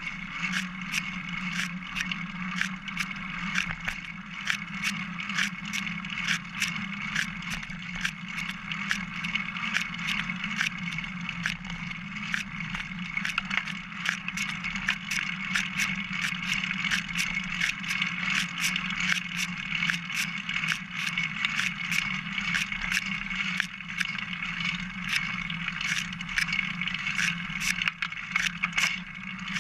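Single-speed bicycle ridden along a trail, heard from a camera mounted on its top tube: steady tyre and frame noise, with frequent irregular clicks and rattles.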